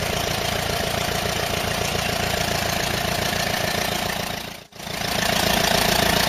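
Tractor engine sound effect running steadily with a rough rumble; it fades out briefly about four and a half seconds in and starts again a little louder.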